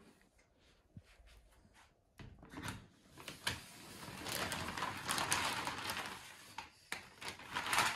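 A glossy, coated shopping tote rustling and crinkling as a computer is lowered into it and packed. The rustle starts about two seconds in, after some light handling clicks, and is loudest in the middle and again near the end.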